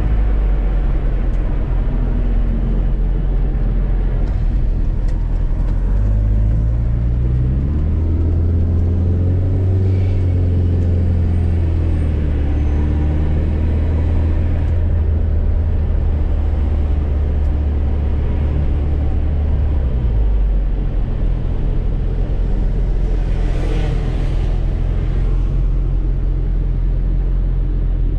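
Fiat Coupe 16V Turbo's turbocharged four-cylinder engine under hard acceleration, its pitch climbing and falling as it revs through the gears, dropping sharply about two-thirds of the way through. A brief rushing hiss follows soon after.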